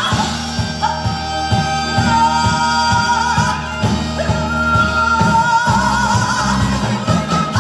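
Korean traditional orchestra playing a fusion piece: a wavering, bending melody line over a steady pounding beat.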